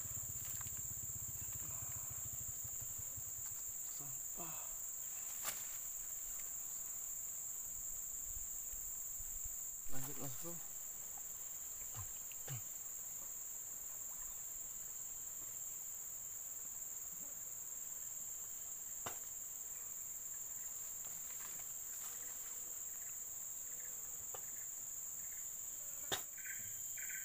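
Steady high-pitched drone of insects from the surrounding grass, with a few faint clicks and one short knock about ten seconds in.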